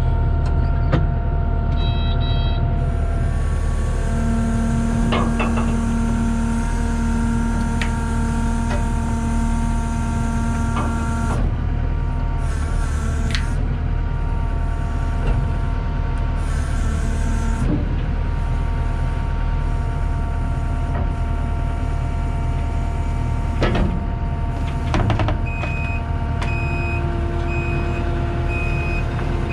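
Skid steer's diesel engine running steadily under load as its forks lift a dump truck box whose own hydraulics have failed, with a few metallic clicks and knocks. Near the end a backup alarm starts, beeping about once a second.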